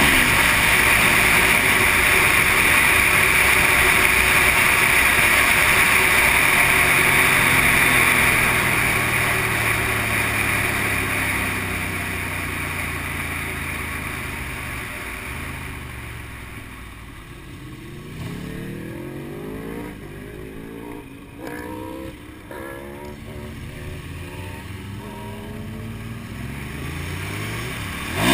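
Motorcycle being ridden at speed, heavy wind rush on the helmet-mounted camera drowning most of the engine, easing after about eight seconds. Through the second half the engine comes through, rising in pitch several times as it pulls through the gears and dropping between, and it turns loud again right at the end.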